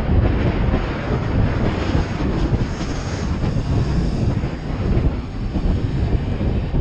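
Honda CB500X motorcycle on the move: wind rushing and buffeting over the camera microphone, with the bike's parallel-twin engine droning underneath at a steady level.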